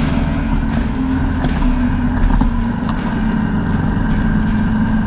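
Honda CB500X parallel-twin 500cc engine running steadily as the motorcycle rides along, heard through an onboard camera with wind and road noise. The engine note shifts about halfway through.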